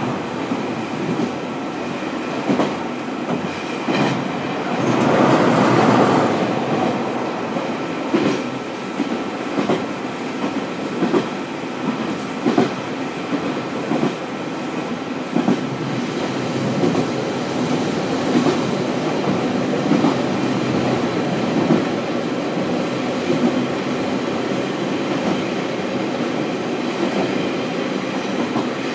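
Interior running sound of a JR West KiHa 40 diesel railcar, heard from above its engine: continuous engine and running noise, with the wheels clicking over rail joints every second or so and a louder rush about five seconds in.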